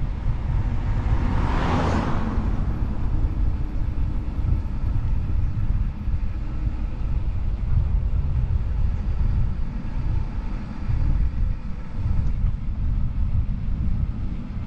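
Wind buffeting the microphone of a bike-mounted action camera as the bicycle rides downhill at speed: a heavy, steady rumble, with a brief rushing swell of noise about two seconds in.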